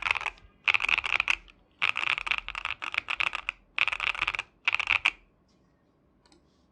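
KBDFans KBD67 Lite mechanical keyboard with factory-lubed Xinmeng Cuibo tactile switches on a POM plate being typed on in quick bursts of keystrokes with short pauses between them. The typing stops about five seconds in.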